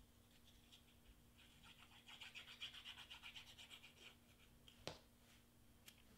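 Faint, rapid scratching of a craft glue bottle's nozzle drawn over a small piece of cardstock as glue is squeezed on, followed about a second later by one sharp click and a lighter one.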